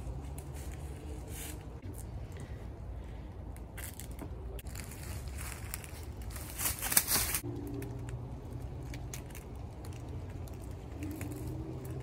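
Blue tape being pulled off the roll in one brief rasping tear about seven seconds in, as the beehive's entrance is taped shut for moving. A low steady hum runs underneath.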